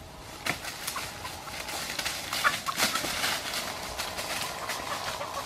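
Footsteps running through dry leaf litter and brush: a quick, irregular series of crunches and snapping twigs.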